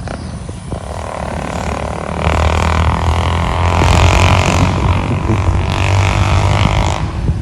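Small electric motors of a foam RC model airplane running at high throttle. The buzzing hum grows louder about two seconds in and holds steady until near the end.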